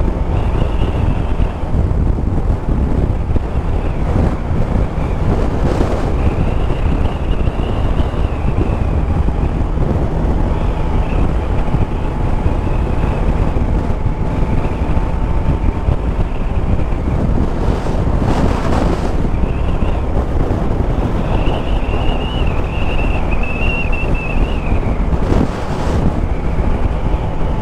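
Motorcycle riding at steady cruising speed: wind rushing over a helmet-mounted microphone above the drone of the Yamaha Tracer 9 GT's 890 cc three-cylinder engine. Two brief louder rushes of wind come in the second half.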